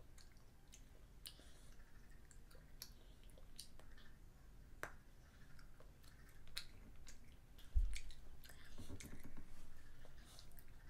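A young child chewing and biting white chocolate, with many small sharp mouth clicks throughout. One dull thump comes about three-quarters of the way through.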